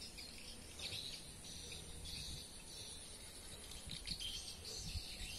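Faint outdoor background of insects and birds chirping in irregular high trills, over a low rumble.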